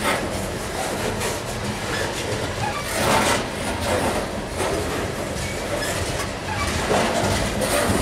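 Freight train of open-top hopper cars rolling past, steel wheels clicking and clattering over the rail with a steady rumble that swells a little about three seconds in and again near the end.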